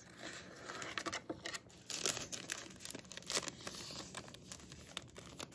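Clear plastic packaging sleeve crinkling and crackling under the fingers as a tail comb inside it is handled, with many small sharp crackles.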